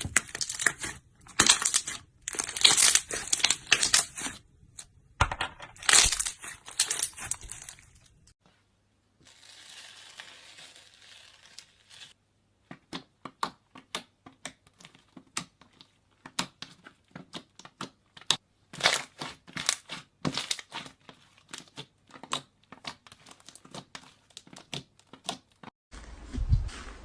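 Bubbly slime squeezed and worked by hand, crackling in dense loud clusters of tiny bubble pops. After a short pause and a few seconds of soft hiss, it gives a long run of sharp separate pops.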